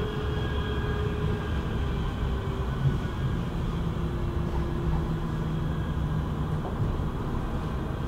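Manchester Metrolink Bombardier M5000 tram running, heard from inside the passenger cabin: a steady low rumble of the wheels on the rails, with faint whining tones that drift slightly in pitch.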